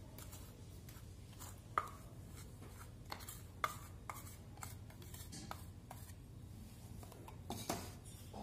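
Metal spoon scraping and tapping inside a stainless-steel mixer-grinder jar to knock out ground sugar-based premix powder: scattered light scrapes and clicks, with two sharper taps about two and three and a half seconds in.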